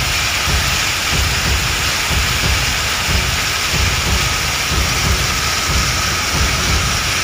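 Heavy rain and hail pouring down onto a street, a loud, steady hiss with a low rumble underneath.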